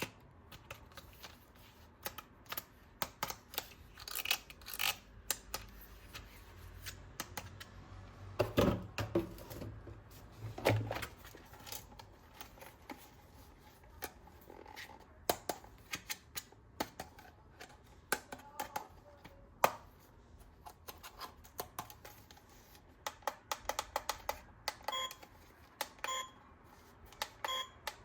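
Scattered clicks, knocks and rattles of plastic toy guns and their parts being handled, with a few louder knocks around nine to eleven seconds in. Near the end comes a quicker run of short, pitched clicks.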